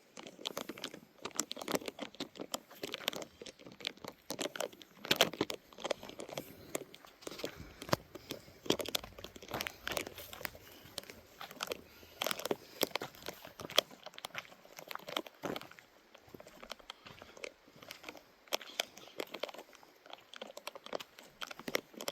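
Footsteps on a forest trail: a continuous run of irregular sharp crackles and snaps underfoot as someone walks uphill through the woods.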